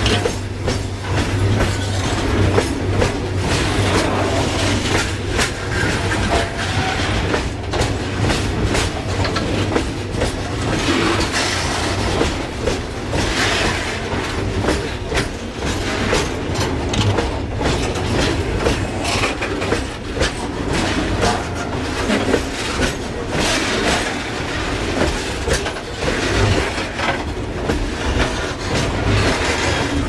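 Goods train wagons rolling directly overhead, heard from between the rails: a loud, steady rumble of steel wheels on the track, with a continual irregular clatter of clanks as the wheels cross the rail joints.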